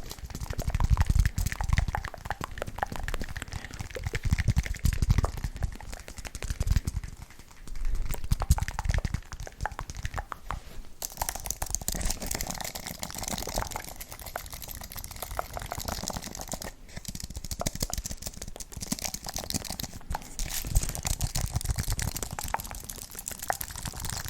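Keys of a computer keyboard being typed on rapidly, a dense run of clicks and clacks, with heavier low thuds from the keystrokes in the first half.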